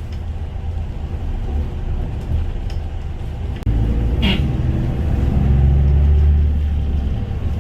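Steady low rumble of a vehicle on the move, like road noise inside a car, growing louder a few seconds in, with one short knock or click partway through.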